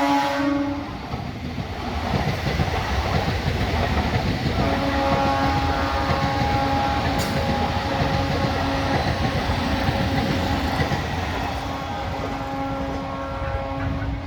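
Indian Railways local train coming in, its wheels clattering steadily over the rails. A horn blast ends about a second in, and a second long, steady horn blast starts about four and a half seconds in and holds for the rest.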